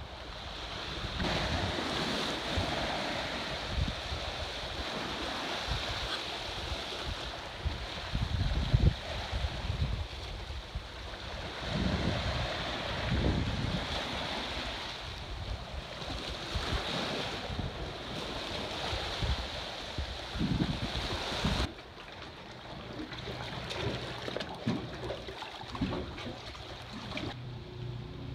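Sea surf washing against a rocky shore, swelling and ebbing every few seconds, with wind gusting on the microphone. The wash drops away abruptly near the end.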